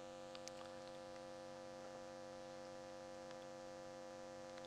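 Faint, steady electrical mains hum, with a few faint clicks scattered through it.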